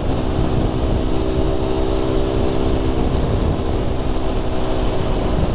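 Aprilia RS 125's single-cylinder four-stroke engine running at a steady cruise on the move, with heavy wind rumble on the microphone.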